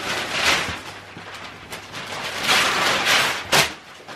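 Wrapping paper tearing and rustling in two long rips as a large present is unwrapped, followed by a single sharp click.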